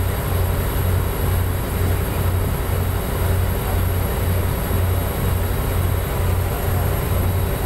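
Motor boat under way: its engine runs with a loud, steady low drone that throbs about twice a second, over a constant rush of water along the hull.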